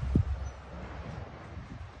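Wind buffeting the microphone: a low rumble that eases off about half a second in, with one short thump near the start, then a steady outdoor hiss.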